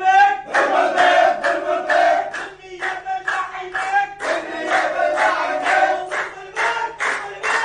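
Several voices singing a song together, holding sung notes between short breaks.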